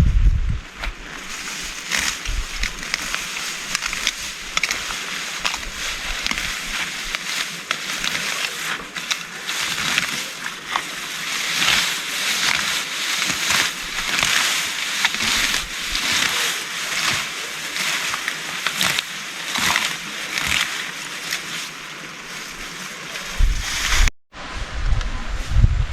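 Heavy rain pouring: a dense steady hiss with many close drops splattering. Near the end the sound cuts out for a moment, then wind buffets the microphone with a low rumble.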